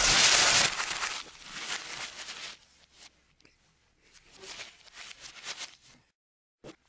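A loud, harsh, noisy burst lasting under a second, then paper rustling as the pages of a paperback book are handled, coming and going more faintly and cutting off to dead silence about six seconds in.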